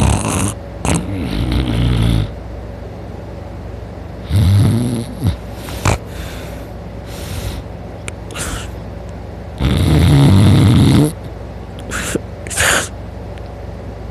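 A sleeping man snoring really loud: several rasping snores at irregular gaps, the longest and loudest about ten seconds in, with shorter snorts between.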